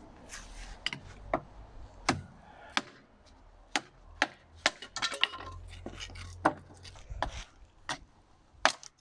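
Steel chain links clinking and the axe head knocking against a wooden stick as the chain-handled axe is handled, giving about a dozen sharp, irregular clicks and clinks, a few with a brief metallic ring.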